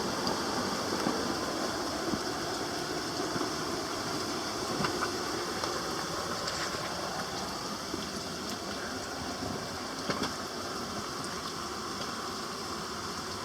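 Waterfall: a steady, even rush of falling water, with a few faint splashing clicks.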